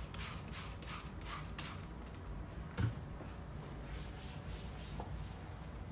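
Trigger spray bottle squirting cleaner into a kitchen drawer, about six quick hissing squirts in the first two seconds, then a single dull knock a little under three seconds in, followed by faint rubbing as the drawer is wiped with paper towels.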